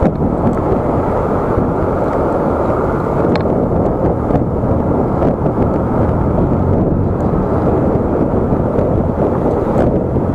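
Steady, dull wind rush and road noise buffeting an SJCAM SJ5000X Elite action camera's microphone while riding an electric scooter along a road.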